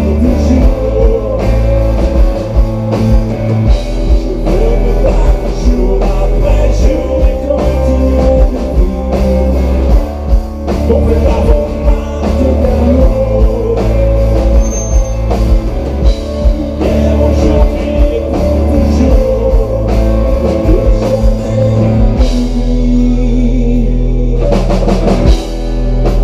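Rock band playing live through a PA: electric guitars, bass guitar and drum kit, with a singer. About four seconds from the end the drums and cymbals drop out briefly while a low chord rings on, then the full band comes back in.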